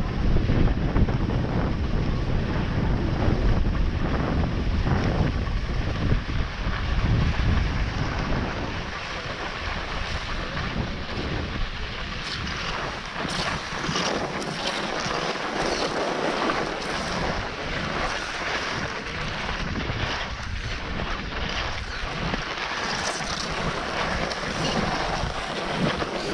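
Wind buffeting the microphone while skiing fast downhill, with the hiss and scrape of skis running on hard-packed, tracked snow. The low wind rumble eases after about eight seconds and the scraping hiss of the skis comes forward, with many short rasps as the edges bite.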